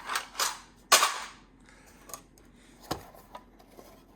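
Socket sets and their cases being handled and set down: a sharp clack about a second in, with a couple of smaller knocks before it and a few light clicks after.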